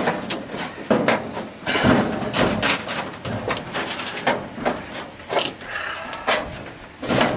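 A string of irregular sharp knocks and clinks, roughly one a second, from hand work on a steel girder and hoist gear.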